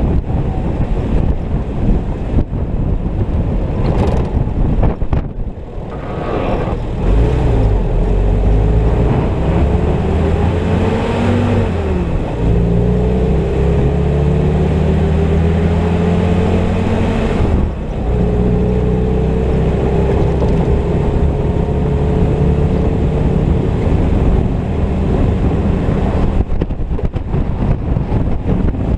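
Willys M38 jeep's four-cylinder flathead engine pulling up through the gears: its pitch climbs, dips at a shift, climbs again, and breaks off briefly at a second shift before rising slowly. Wind rushes over the microphone at the start and again near the end, where the engine fades under it.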